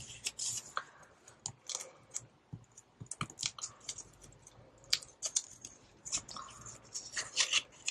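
Paper banknotes (twenty-dollar bills) being handled and slid into a plastic cash envelope in a ring binder: scattered, irregular crisp rustles and crinkles of paper and plastic.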